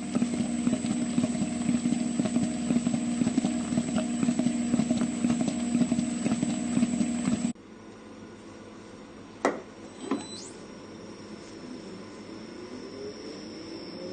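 Masterchef cooker's stirrer running steadily with a low hum and many small knocks as its paddles work thick choux paste in the tank. After a cut about seven and a half seconds in there is a quieter machine hum, two sharp clicks about a second apart as the front dispensing door is worked, then a high whine and lower tones that slowly rise in pitch as the stirrer speeds up to push the paste out.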